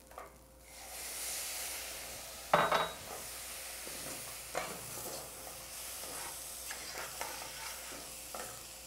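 Rice and sausage in a hot stainless steel pot sizzling with a steady hiss as white wine is added at the start of a risotto, with a metal spoon stirring and scraping against the pot. A short knock about two and a half seconds in is the loudest moment.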